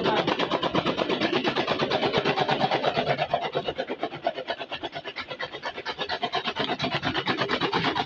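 Chaff cutter chopping green maize stalks into silage: a fast, even run of cutting strokes that eases off for a couple of seconds in the middle, then picks up again.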